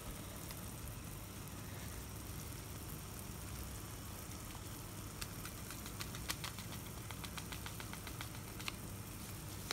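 Black pepper being ground from a pepper mill: a quick run of small clicks starting about five seconds in and lasting a few seconds, over a steady low hum.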